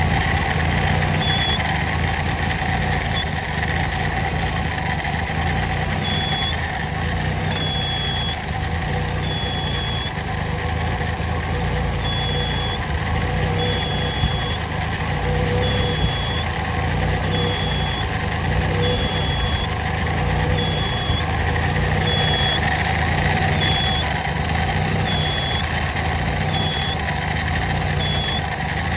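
Small engine with an ND2904NEW carburetor running and surging, its speed rising and falling unevenly. A short high-pitched beep-like chirp repeats about every one to two seconds. This is the sound the owner is asking about.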